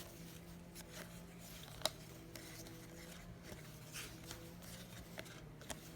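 Faint handling of trading cards being flipped through by hand: light scrapes and small clicks, with one sharp tick about two seconds in, over a faint steady hum.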